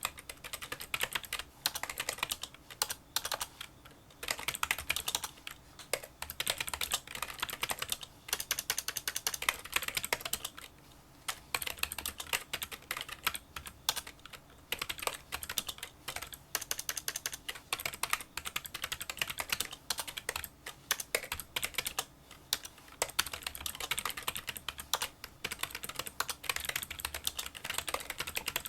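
Fast touch-typing on a Kinesis Freestyle Solo split keyboard with membrane key switches: a rapid run of small, fairly quiet clicking keystrokes, with brief pauses between bursts.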